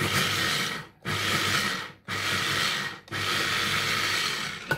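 Electric mini chopper run in short pulses, its blade whirring through onion and garlic: four bursts of about a second each with brief pauses between, the last one a little longer.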